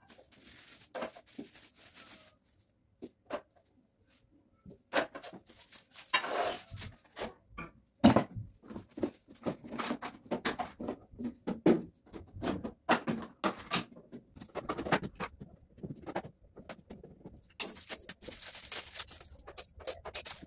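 Kitchenware being handled and set down on a granite counter: scattered clicks, knocks and light clatter, the loudest knock about eight seconds in. Plastic packaging crinkles near the end.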